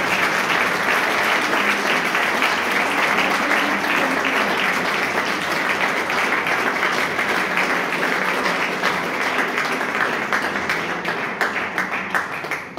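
Audience applauding: steady, dense clapping that dies away at the very end.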